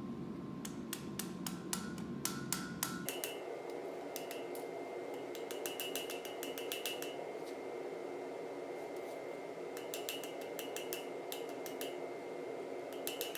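Hammer striking steel on an anvil in quick runs of light blows, each with a short metallic ring, with pauses between the runs.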